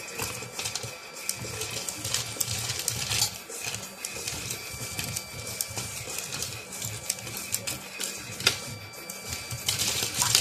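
Lego Technic Power Functions motors and plastic gears whirring in a home-built six-wheeled truck as it drives, with irregular sharp clicks and knocks of plastic parts.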